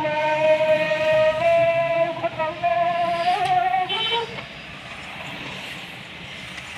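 Background music: a melody of long held notes that step up and down in pitch, fading to a quieter hiss after about four seconds.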